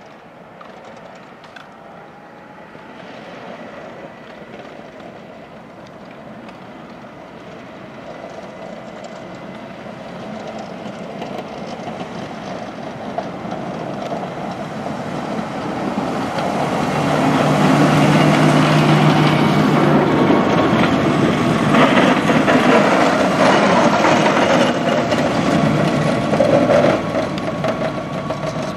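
Fendt tractors pushing front snow plows along a road, their diesel engines running under load with the plow blades scraping through the snow. The sound swells as they approach, is loudest as they pass, then starts to fade.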